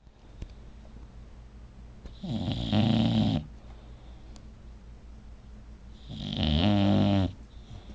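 A sleeping bulldog snoring loudly: two long snores about four seconds apart, each lasting a little over a second, much quieter in between.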